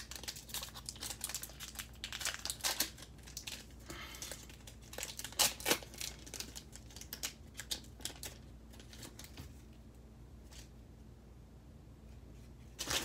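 Cellophane wrapper of a 2020 Mosaic football card cello pack crinkling and tearing as it is opened by hand, in a run of sharp crackles that thin out after about eight seconds while the cards are handled.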